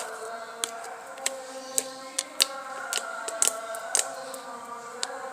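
Fluffy slime being pressed and stretched by hand, giving off sharp irregular pops and clicks as air pockets burst, about nine in a few seconds.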